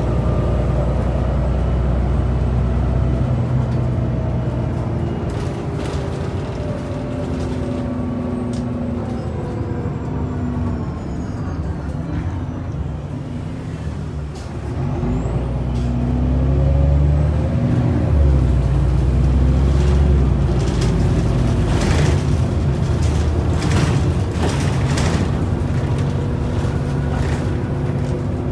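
Inside a 2003 Irisbus Citybus 12M city bus on the move: the engine and automatic gearbox drone drops in pitch as the bus slows. It then climbs again as the bus pulls away, with a break in the rise like a gear change. Short rattles and knocks from the bus body come in the latter part.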